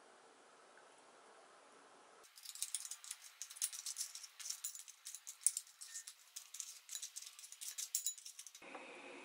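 Metal chopsticks clicking and scraping against a ceramic bowl while turning slices of beef brisket in soy sauce: a rapid, irregular run of sharp clicks that starts about two seconds in and stops shortly before the end.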